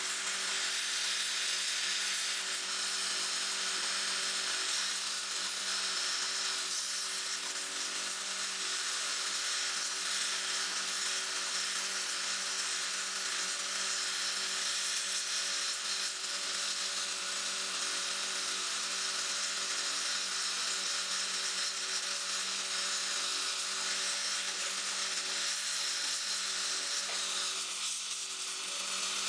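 Air-gas torch flame hissing steadily into a crucible while melting silver, with a steady hum under it.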